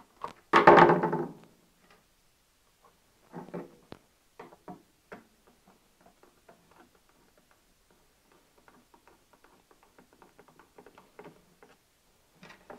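Small clicks and taps of a screwdriver and wire ends being worked into the screw terminal block of a pulse width modulator module, with a louder rustle of handling about a second in. Later comes a run of faint quick ticks as the terminal screw is turned.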